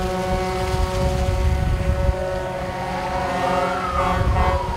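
Several vehicle horns sounding together in steady held tones over a low engine rumble and wind on the microphone; in the second half one tone glides up and back down.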